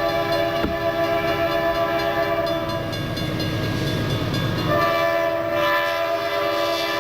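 Diesel freight locomotive's air horn sounding one long, steady blast over the rumble of the train. About five seconds in, the rumble drops and the horn's chord shifts.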